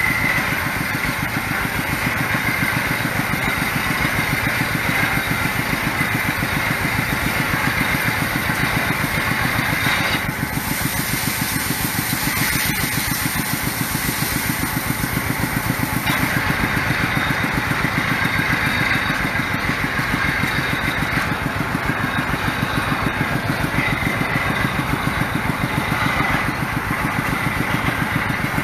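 The engine of a water-well drilling rig runs steadily as the rig drills, with a fast, even pulsing. From about ten to sixteen seconds in, a hiss of water and mud spraying from the wellhead joins it.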